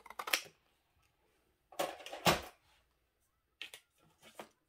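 Papercraft materials handled on a tabletop, as of thin metal cutting dies and paper being picked up and set down: a few light clicks, then a short clatter with a dull knock about two seconds in, and a few more faint clicks near the end.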